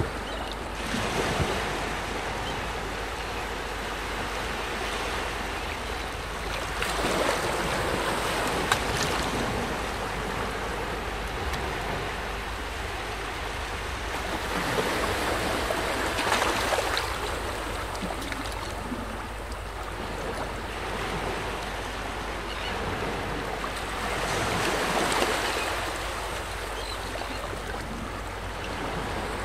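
Small waves washing in, a steady wash that swells every several seconds.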